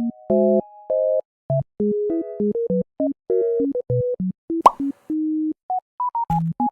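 Cute, bouncy synthesizer background music made of short, clean plucked notes. A rising sweep sounds a little over halfway through, and low bass notes come in near the end.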